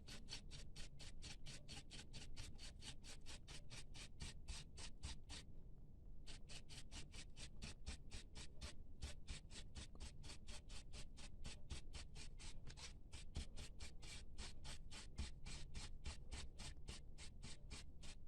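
A small brush scrubbing a dusty laptop cooling fan: rapid, even back-and-forth bristle strokes, about five a second, with a short pause about five seconds in.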